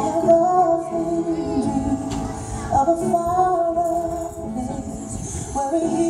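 Fireworks-show soundtrack music with a singing voice carrying a gliding melody over held notes.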